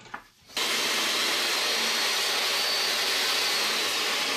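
DeWalt table saw running steadily while ripping a riser board, a constant even motor-and-blade noise that sets in after a brief drop at the very start.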